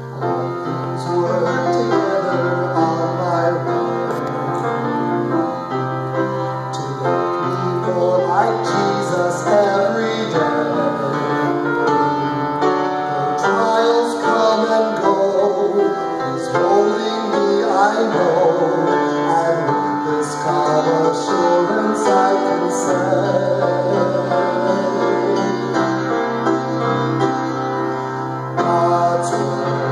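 A man sings a slow gospel song into a microphone, accompanied on a grand piano.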